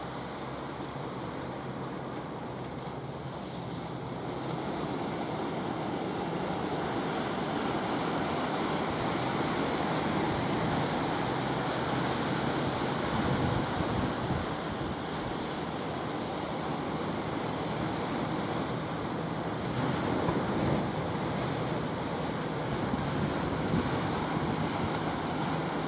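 Surf breaking and wind buffeting the microphone, swelling after a few seconds, with a low steady drone underneath from the wooden fishing boat's engine as it comes in through the rough water.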